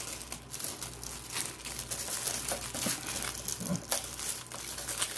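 Thin clear plastic bag crinkling and rustling in the hands as it is pulled off and bunched up, with irregular sharp crackles throughout.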